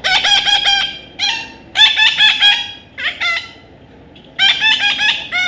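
Parrot giving bursts of rapid, shrill repeated calls, about five bursts with short pauses between.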